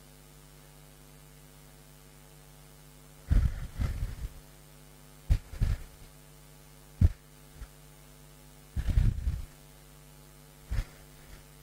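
Hard, irregular exhalations of a man straining on an exercise bike, puffing into a close microphone as a series of about six low thumps. A steady low electrical hum runs underneath.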